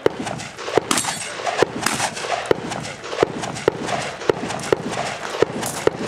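A series of gunshots from a competitor shooting a stage, about ten sharp reports fired at an uneven pace of roughly one every half second to a second.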